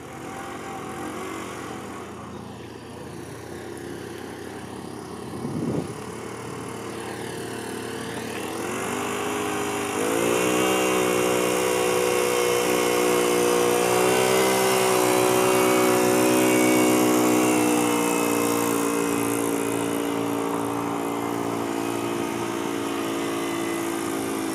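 Engine of a large yellow model dump truck carrying a seated driver. Its pitch rises about eight to ten seconds in, then it runs steadily and louder.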